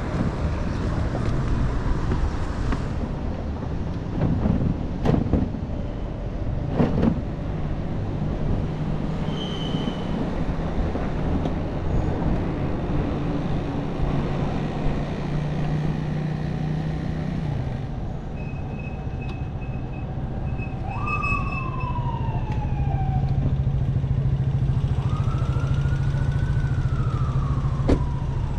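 Street traffic and steady wind rush on the microphone of a camera riding on an electric scooter. In the second half a siren wails twice, each wail climbing and then sliding slowly down in pitch.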